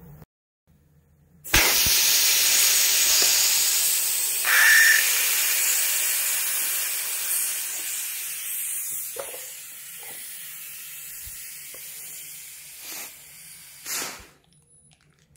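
Air hissing out of a car tyre through its open valve stem, the valve core removed, once the bead has been seated. It starts suddenly about a second and a half in, loud at first, then fades steadily for about twelve seconds before stopping.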